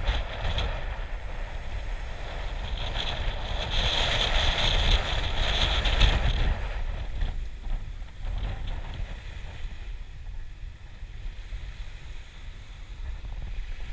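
Wind rumbling on the microphone while the boat is towed slowly over sand, with a rushing hiss that swells about three seconds in and eases off a few seconds later.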